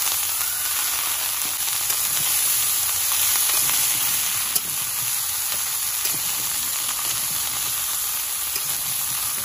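Mixed vegetables (drumsticks, yardlong beans, papaya, sweet potato, carrot) sizzling steadily as they fry in a metal wok, stirred with a spatula that clicks lightly against the pan a few times.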